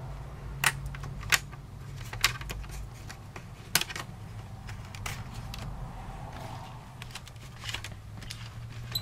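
Plastic snap clips of a Dell Vostro 1500 laptop's palmrest clicking loose as the upper case is pried off the lower half: a string of sharp, irregular clicks, the loudest in the first four seconds, over a low steady hum.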